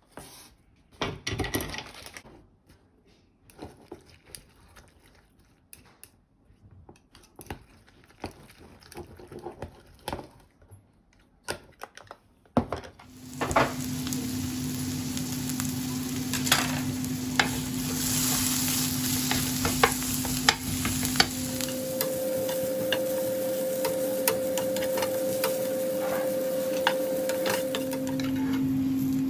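Kitchen clicks and knocks of food preparation, then, about halfway through, food starting to sizzle in a frying pan, with frequent taps of a utensil stirring it. Under the frying a steady hum jumps up in pitch and later drops back.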